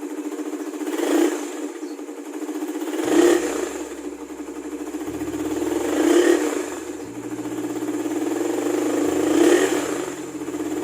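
Suzuki Raider 150 carburetted single-cylinder four-stroke engine running through its stock muffler, its throttle blipped four times, each rev rising and dropping back to idle.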